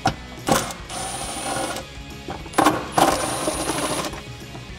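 Cordless Milwaukee M18 impact wrench with a 12 mm socket running in two short bursts, each about a second long with a steady whine, backing out the two bolts that hold down the bottom of the plastic air intake box.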